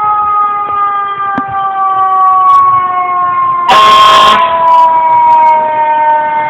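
Fire truck siren wailing, its pitch falling slowly, cut across about four seconds in by one short, loud air-horn blast.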